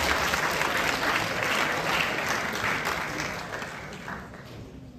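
Audience applauding, many hands clapping, fading away through the last couple of seconds.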